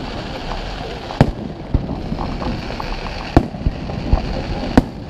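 Fireworks bangs: three loud, sharp reports spaced a second and a half to two seconds apart, with a few fainter pops between them, over a background of crowd voices.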